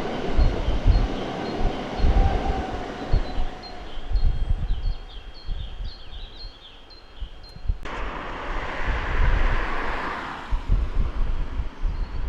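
Train running on the line below, its sound fading over the first few seconds, with wind gusting on the microphone throughout. High chirps come a few seconds in, and a sharp click about eight seconds in is followed by a short hiss.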